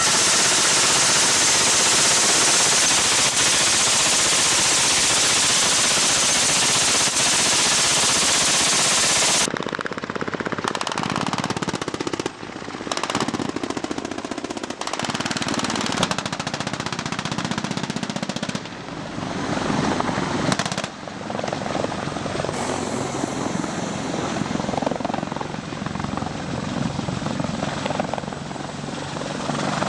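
Heavy military helicopters running close by: rotor noise with a rapid pulsing beat over turbine hiss. It starts as a dense rushing noise for about nine seconds, then breaks into a series of abrupt cuts between clips.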